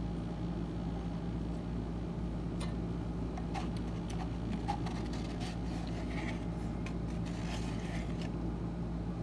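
Quiet sips and light handling of a Cup Noodles cup, a few soft clicks and scrapes, over a steady low hum.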